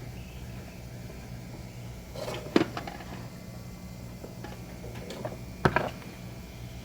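Two sharp clicks, about three seconds apart, as small hard objects are handled or set down, over a steady low hum.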